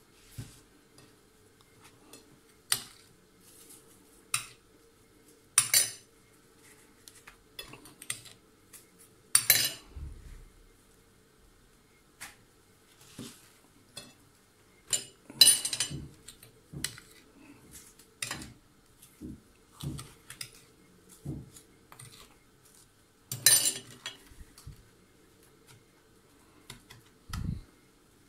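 Metal spoon clinking against a glass dish while sugar is spooned over fried pastries, with dishes knocked now and then. Separate clinks and knocks come irregularly, the loudest about a third of the way in, about halfway and near the end.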